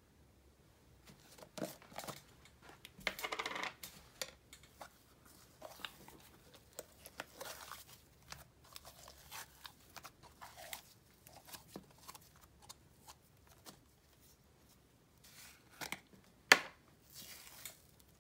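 Slime being pulled and scooped out of plastic cups and jars into a glass bowl: scattered short, soft handling noises, with one sharp knock of a container near the end.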